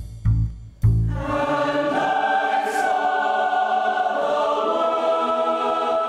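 A few plucked bass notes, then about a second in a mixed choir comes in singing a long, sustained chord.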